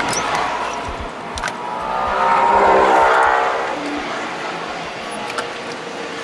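A passing vehicle swells and fades over about two seconds, with scattered light clicks around it.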